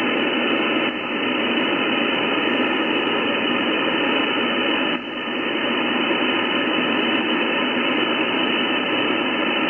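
Steady hiss of static from a CB radio receiver, band-limited like radio audio, briefly dipping about a second in and again about five seconds in.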